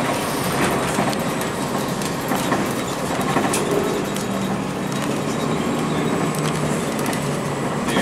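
Ride noise inside a 2002 Blue Bird CS transit bus: its Cummins ISC six-cylinder diesel running under a steady hum of road noise, with constant small rattles and clicks from the body and fittings.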